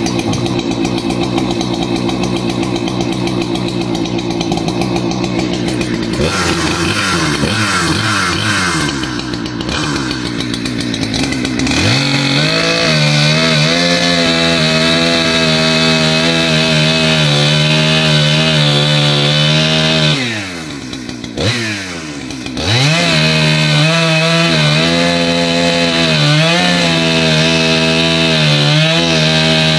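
Husqvarna 395 XP two-stroke chainsaw being test-run after its broken clutch spring was replaced. It runs at lower, shifting revs for the first several seconds, then is held at full throttle cutting through a log. The revs dip briefly about two-thirds of the way through, then climb back and hold.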